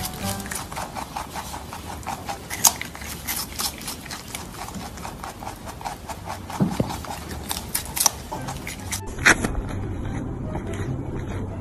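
Rabbit crunching crisp cucumber and carrot slices: rapid, close-up bites and chewing. About nine seconds in it changes to another animal biting into and munching a dry cracker.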